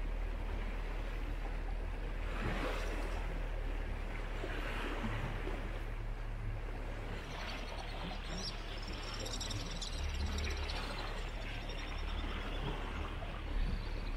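Water rushing and swishing along the hull of a sailing yacht under way, over a steady low hum.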